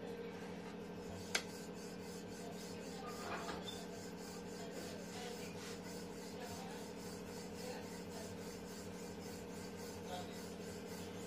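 Wooden rolling pin rolling paratha dough on a floured wooden board: a continuous soft rubbing and rasping over a steady low hum. One sharp click about a second in.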